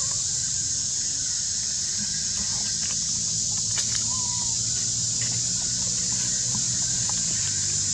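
Steady high-pitched drone of cicadas, with a faint short chirp about four seconds in and a low hum underneath.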